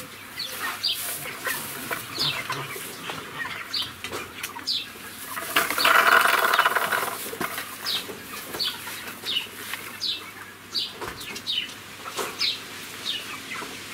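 Young chickens peeping over and over: short, high calls that fall in pitch. About six seconds in there is a louder rustling burst lasting a second or two.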